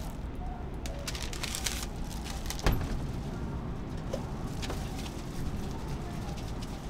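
Paper waffle sleeve crinkling as it is handled, with scattered light clicks over a steady low hum, and one sharp knock a little under three seconds in.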